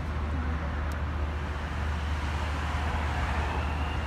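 Steady road traffic noise with a low rumble, swelling slightly in the second half.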